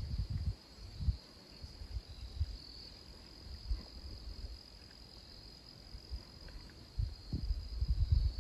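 Steady high-pitched trill of crickets, with irregular low rumbles of wind buffeting the microphone at the start and again near the end.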